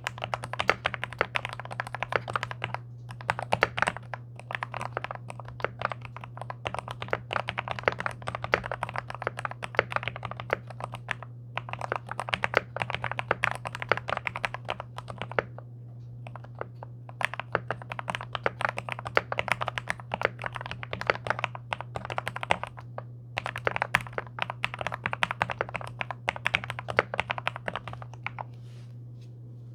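Fast typing on a NextTime 75 gasket-mount mechanical keyboard with lubed MOMOKA Frog switches, in runs of keystrokes broken by short pauses; the typing stops just before the end. A steady low hum runs underneath.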